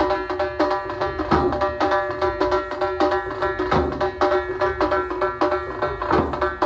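Lezim procession music: a drum beating a fast rhythm, with a heavier stroke every couple of seconds, under a melody instrument holding steady notes, and sharp metallic clashes of the lezim jingles throughout.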